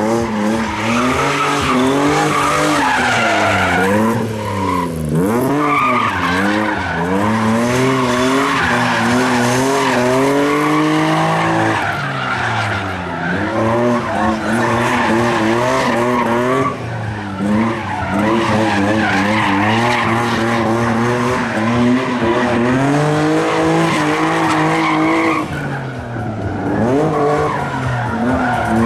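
Car engine revved hard, its note climbing and dropping again and again, with tyre squeal and skidding as the car slides around cones.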